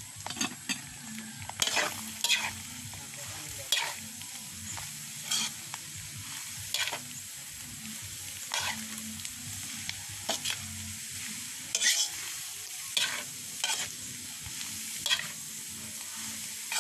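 A metal spatula scraping around a wok as shredded santol is stirred into frying shrimp paste. A sharp scrape comes every second or so over a steady sizzle.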